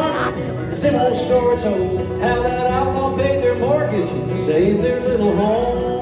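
Live country band playing a song in a concert hall, with a man singing over guitars and a steady band backing; the melody bends and slides in pitch.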